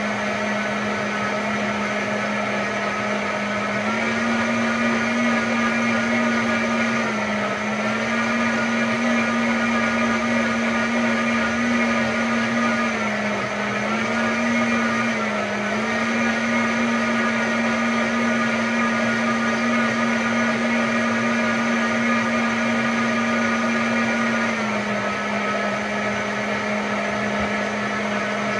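High-powered countertop blender running continuously, blending beetroot and carrot with water into juice. Its motor pitch steps up about four seconds in, dips briefly twice, around seven and fourteen seconds, and steps back down near the end as the speed dial is turned.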